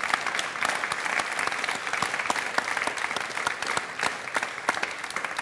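Audience applauding: a dense patter of many hands clapping at an even level.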